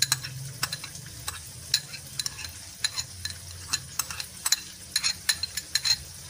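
Metal spoon scraping sauce off a ceramic plate into a bowl, clinking and tapping against the dishes irregularly, several times a second.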